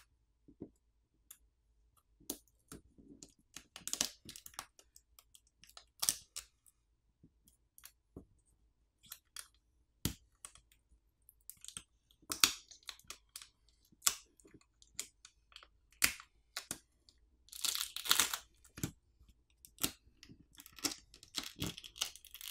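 Adhesive and pull pouch crackling and tearing as a OnePlus Nord CE4's battery is pulled free of the frame. Scattered short crackles and clicks, with a longer run of crackling near the end.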